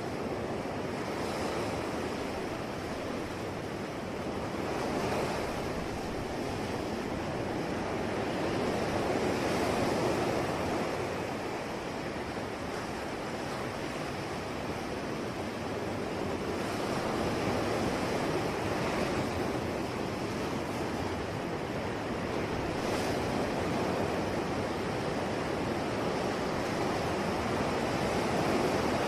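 Ocean waves breaking and washing on the shore in a continuous rush, swelling and ebbing slowly every several seconds.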